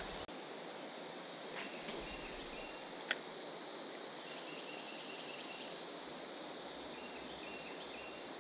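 Steady high-pitched drone of a periodical (17-year) cicada chorus, with a faint repeated chirping above it and a single sharp click about three seconds in.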